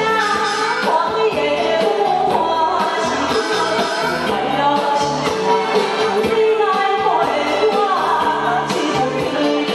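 A woman singing a cha-cha pop song into a microphone over loud, continuous backing music.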